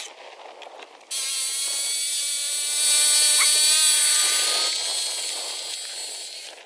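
Small internal-combustion engine of an RC model airplane running at high revs with a steady high-pitched buzz. It cuts in suddenly about a second in, is loudest about three to four seconds in, then fades as the plane moves away.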